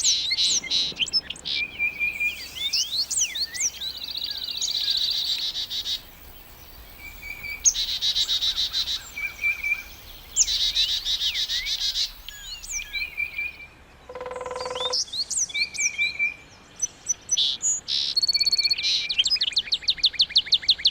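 Several songbirds chirping and singing together, with trills and quick series of repeated high notes. A lower, harsher call comes in briefly about two-thirds of the way through.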